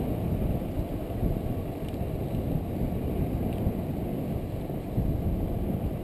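Wind buffeting a GoPro's microphone together with tyre rumble from a mountain bike rolling fast down a paved road: a steady, fluctuating low rush.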